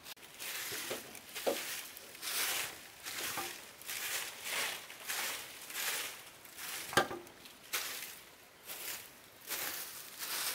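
Footsteps crunching over dry ground and leaf litter, about one and a half steps a second, with a sharp snap about seven seconds in.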